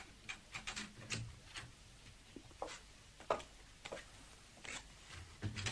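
A series of light, irregular clicks and taps, about a dozen in several seconds, over a faint room hum.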